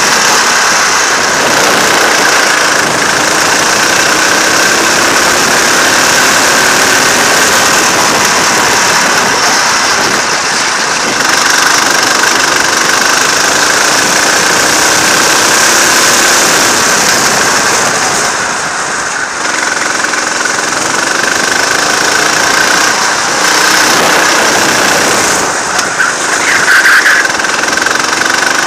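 Go-kart engine running hard on a track, heard from an onboard camera, its pitch rising and falling as the driver works the throttle through the corners. The level dips briefly about two-thirds of the way through, as the kart lifts off for a bend.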